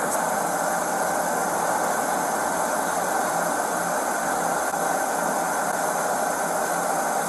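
Steady drone of idling car engines.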